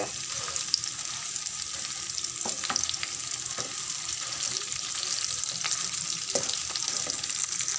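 Onions frying in hot oil in a pan sizzle steadily while mashed potato is stirred into them with a wooden spatula, with a few light scrapes and taps of the spatula against the pan.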